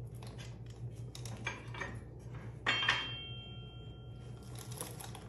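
Metal tools and motorcycle parts clinking and clattering as the rear wheel, axle and ABS sensor are fitted, with one louder metallic clank a little under 3 seconds in that rings briefly. A steady low hum runs underneath.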